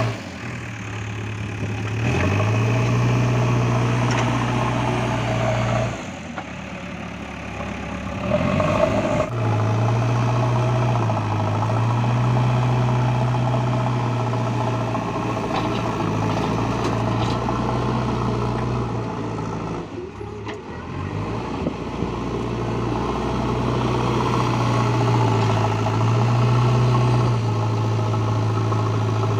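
Diesel engine of a JCB 3DX backhoe loader running at working revs, its pitch stepping up and down a few times as the load changes.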